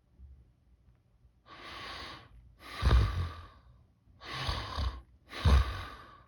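A person snoring on purpose with the mouth closed and the lower jaw pushed forward, a test of whether advancing the jaw to widen the airway stops the snore. Four breath noises come in turn, the second and fourth louder, with a low rumble.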